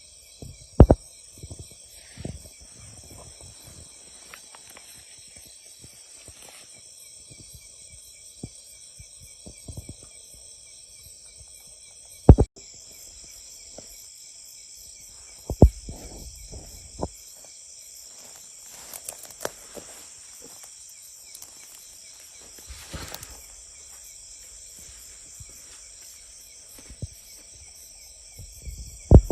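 A steady, high chorus of insects, broken by a few sharp thumps, the loudest about 12 seconds in.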